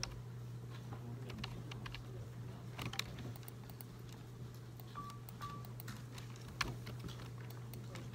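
Typing on a computer keyboard: scattered key clicks over a steady low hum. Two short beeps come about five seconds in.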